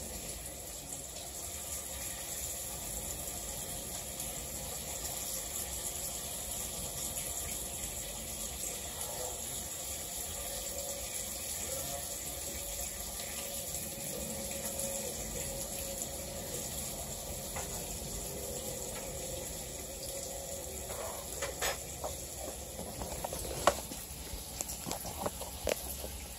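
Food sizzling steadily in a frying pan on the stove. From about three quarters of the way in come a few sharp knocks and clicks, loudest near the end, as the phone is handled close to the microphone.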